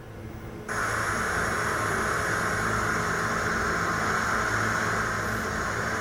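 Television static: the white-noise hiss of a TV tuned to a channel with no signal, switched on about a second in and then running steadily, with a faint low hum underneath.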